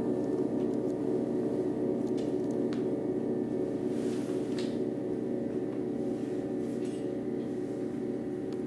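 Many large bronze singing bowls ringing together, their low, overlapping tones wavering and beating against one another as they slowly fade.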